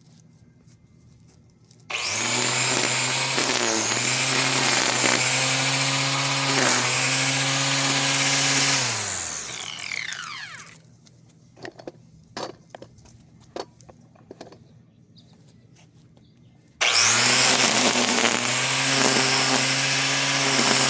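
BLACK+DECKER 3-in-1 corded electric string trimmer running in trimming mode: the motor starts about two seconds in and runs with a steady whine whose pitch dips briefly a few times, then winds down with a falling pitch when released. A few short clicks follow, then the trimmer starts again and stops abruptly at the end.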